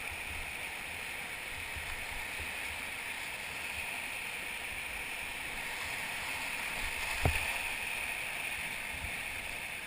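Steady rush of whitewater river current, with one short knock about seven seconds in.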